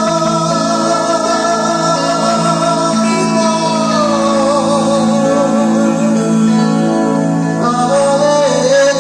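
Live band playing: a held, wavering lead melody over steady sustained chords, the melody sliding down about four seconds in and a new note starting near the end.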